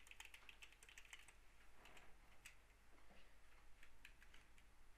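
Faint typing on a computer keyboard: quick, irregular keystroke clicks as a line of code is typed.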